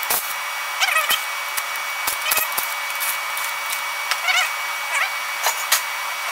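Scattered sharp clicks and clinks of loose bolts and small steel parts being handled on a transmission's transfer-case housing and set down on a metal bench, with a few short squeaky chirps, over a steady hiss with a thin steady whine.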